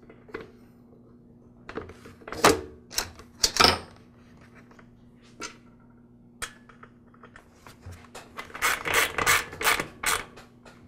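Plastic recoil starter housing knocking and clicking as it is fitted onto a lawn mower engine, then a hand ratchet clicking rapidly for about two seconds near the end as the housing's mounting bolts are tightened.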